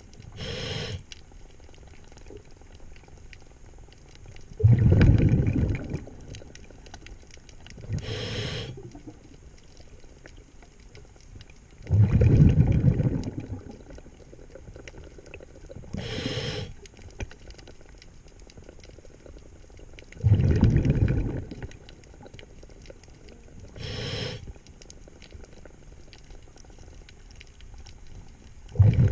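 Scuba diver breathing through a regulator underwater: a short hiss of inhalation, then about four seconds later a longer, louder rumble of exhaled bubbles. The cycle repeats about every eight seconds.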